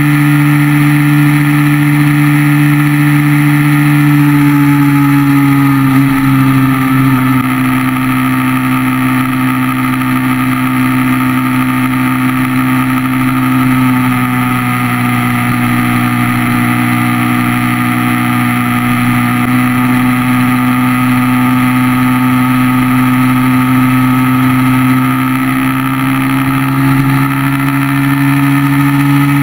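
Yamaha motorcycle engine running steadily at cruising speed, heard from the rider's seat. Its pitch dips slightly about six seconds in, then holds and creeps back up near the end.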